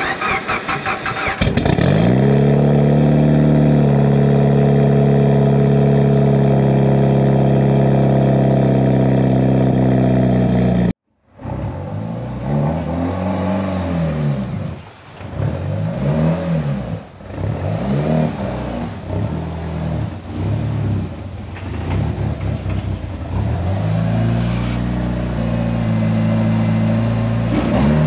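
Mitsubishi Lancer Evolution VIII's turbocharged 4G63 inline-four cold-starting: brief cranking, catching on the first try, then a steady fast idle heard close to the exhaust tip. After a cut about eleven seconds in, the engine note rises and falls repeatedly as the car is driven slowly in, then settles to a steady idle near the end.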